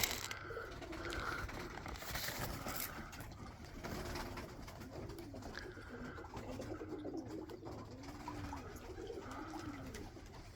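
Domestic pigeons cooing: a series of soft, low, arching coos, coming one after another from about the middle of the stretch on.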